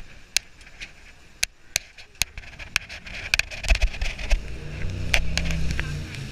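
A jet boat under way: a hiss of water and wind, broken by many sharp clicks and knocks. About two-thirds of the way in, the boat's engine comes up as a low drone that grows louder.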